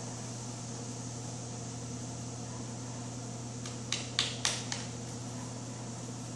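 Steady low hum with a constant hiss, the background noise of a large indoor riding arena, broken about four seconds in by four quick sharp clicks in under a second.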